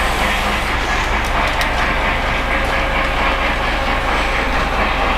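Lionel O-gauge model train running on its track, a steady running noise from the locomotive and its wheels on the rails.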